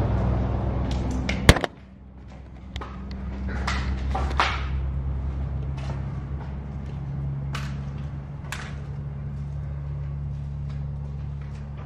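Footsteps on concrete and debris, with scattered irregular clicks, over a steady low engine-like hum. A louder noise cuts off at a sharp click about a second and a half in.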